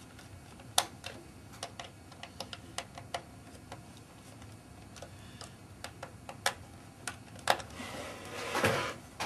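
Small screwdriver clicking and ticking irregularly against the screws of a weighing indicator's cable connector as they are tightened. Near the end, a short scraping rustle as the plastic indicator housing is turned on the desk.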